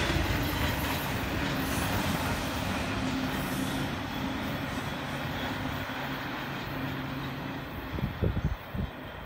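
Norfolk Southern intermodal freight train running away into the distance, its rail and wheel noise fading steadily. A few low thumps come in near the end.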